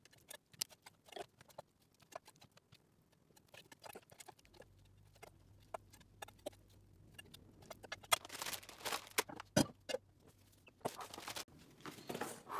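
Scattered small clicks and rustles of things being handled, growing louder and busier in the second half, with one sharp click. A faint steady hum sets in about four seconds in.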